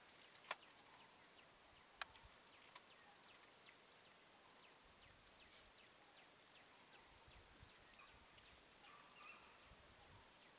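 Near silence with faint, scattered bird chirps, each a short falling note, and two sharp clicks in the first two seconds over a steady faint high hiss.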